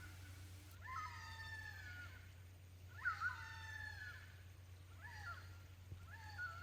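Lesser fish eagle calling, echoing in the forest: a series of loud, wailing calls, each a sharp rise into a long, slightly falling note, one every second or two.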